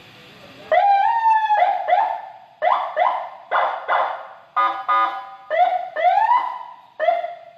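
Senken CJB100BD electronic vehicle siren sounding a rapid series of short rising chirps, about ten in a row, each sweeping up and settling on a steady tone. About halfway through it gives a brief horn-like blast of several tones at once.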